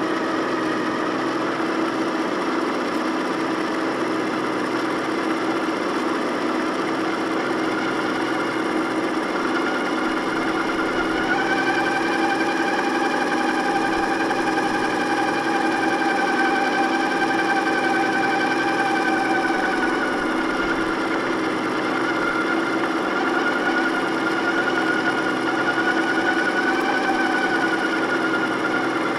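The drive motor and gears of a 1/6-scale radio-controlled Hummer H1 give a steady whine as it tows a model helicopter. About a third of the way in the whine rises in pitch and gets a little louder, and about two-thirds through it eases back down.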